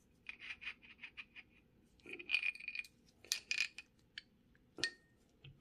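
Small steel parts of a Dura-Ace front hub, such as the axle and washers, clinking and ticking against each other as they are handled and fitted together: several quick runs of light metallic ticks with a faint ring, and one sharper clink with a short ring near the end.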